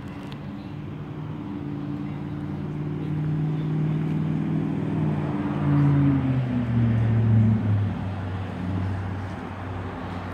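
1995 Chevrolet Impala SS's 5.7-litre LT1 V8 running at idle, a steady low engine note that eases down a little in pitch about halfway through.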